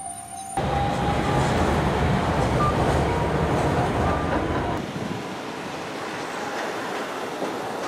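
Fukui Railway street trams running on their rails: a heavy low rumble of a tram in motion, switching suddenly about five seconds in to a lighter rail rattle from another tram.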